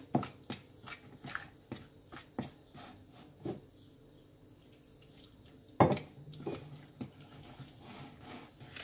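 Fork stirring flour-and-water batter in a plastic mixing bowl: irregular light clicks and scrapes of the fork against the bowl, with one louder knock about six seconds in.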